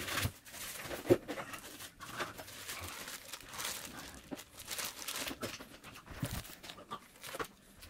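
Plastic packaging crinkling and rustling as it is handled, in irregular crackles, with a sharper click about a second in.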